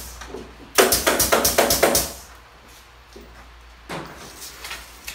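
Carpentry knocking, a tool striking wood: a quick run of six or seven sharp strikes in just over a second, then one more knock near the end followed by lighter taps.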